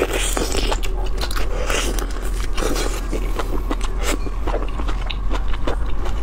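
Close-up eating sounds of someone biting and sucking the flesh out of a large raw marinated shrimp in its shell: wet, irregular clicks and crackles of shell and flesh.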